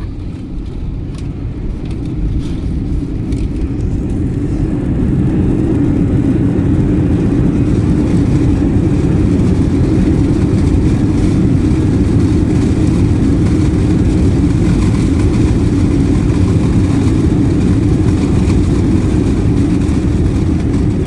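Airbus A321 engine and airframe noise heard inside the cabin during the landing roll. A low rumble builds over the first five or six seconds and then holds steady and loud, as with reverse thrust after touchdown, with a few light rattles early on.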